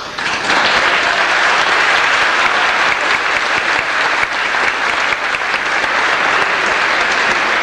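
Applause: many people clapping hands together, a dense steady clatter that starts about half a second in and keeps up.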